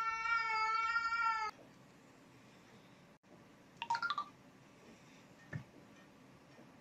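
Domestic cat giving one long, drawn-out yowl at a steady pitch, cut off abruptly about one and a half seconds in. Then a short, fainter high sound about four seconds in.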